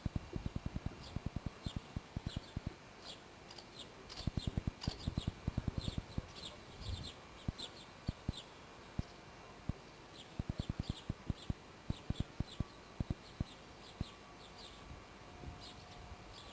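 Small birds chirping in short, repeated high calls, over a rapid, irregular low crackle of clicks that comes and goes in clusters and makes the loudest peaks.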